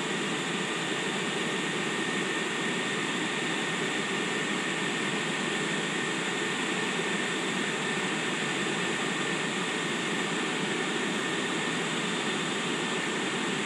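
SNCB class 21 electric locomotive's cooling blowers running steadily: an even whirring rush with a thin, steady high whine, and no coupling clank.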